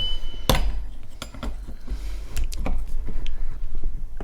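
Small metal parts of a double idler pulley (its bearings and spacer) clinking and knocking together as they are handled: one sharp knock about half a second in, then a few lighter clicks.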